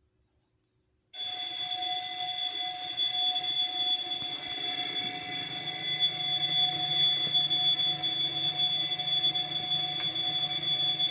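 Fire alarm bell ringing continuously, starting suddenly about a second in. It has been set off in a routine test of the fire detection system.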